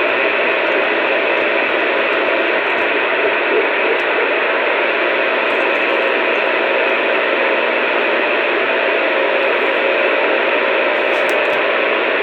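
Steady radio static hiss on an open channel carrying no voice, between transmissions.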